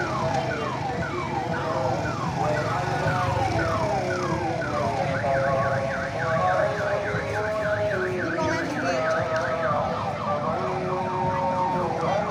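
Electronic multi-tone siren on a decorated odong-odong mini tourist train, sounding falling wails about twice a second. About five seconds in it switches to fast up-and-down yelps, then goes back to falling wails near the end, over a low engine hum.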